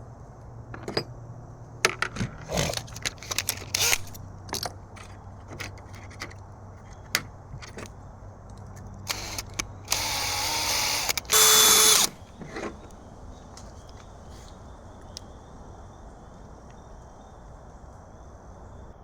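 A series of sharp clicks and knocks from small hard objects being handled. Then a small motor runs in two short bursts, the second louder and with a whine.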